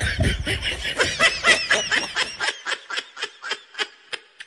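Laughter: a quick string of short laughs, about four a second, that thins out and fades over the second half.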